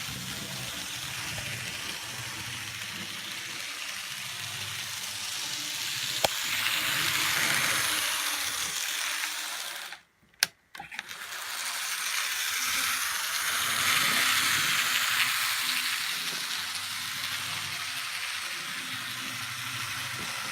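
N-gauge 2-8-8-2 Mallet model locomotive running on track, a steady hissing rattle that swells and fades twice as the train comes nearer and goes away. About halfway through, the sound cuts out briefly with a click.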